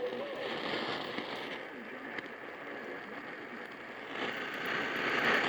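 Steady hiss of radio static, with no voice or alert tones, growing louder from about four seconds in and dropping back at the end.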